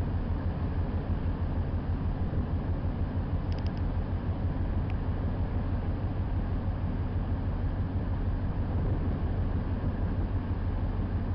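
Steady low rumble with a hiss over it, like a cruise ship's engines heard from on board, with no music.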